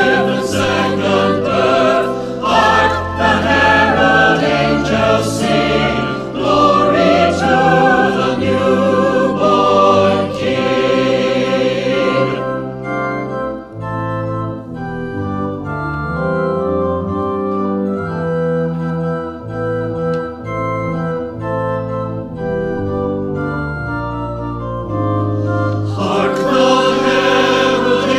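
Virtual choir singing Christmas music with organ accompaniment. About twelve seconds in the voices drop out for a quieter organ interlude of long held notes, and the choir comes back in near the end.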